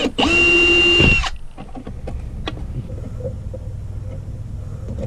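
Cordless drill/driver backing a screw out of an electrical junction box. Its motor gives one steady whine for about a second, followed by light clicks and handling as the old thermostat and its wiring are pulled from the box.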